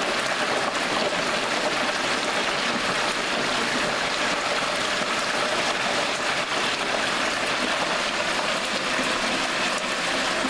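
Hot oil in a Butterball XL electric turkey fryer bubbling and sizzling hard around a whole turkey just lowered into it: a steady, dense crackling hiss.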